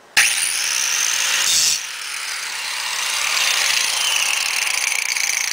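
Angle grinder running and grinding metal, throwing a short burst of sparks. It comes in abruptly just after the start, drops in level a little under two seconds in, then slowly builds again.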